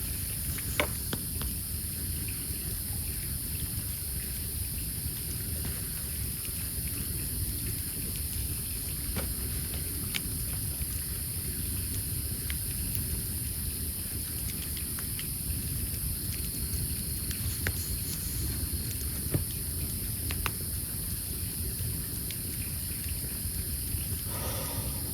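Wood fire crackling, with a few sharp pops scattered through, over a steady high drone of night insects.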